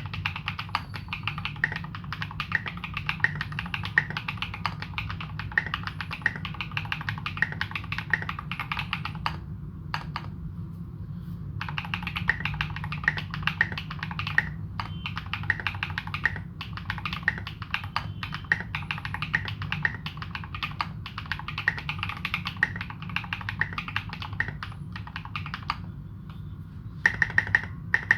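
Fast typing on a custom Morgan65 mechanical keyboard with modded tactile Holy Panda switches and SA keycaps: a dense, rapid clatter of keystrokes. It pauses for about two seconds roughly a third of the way in and briefly near the end, then comes back with louder, more spaced strokes.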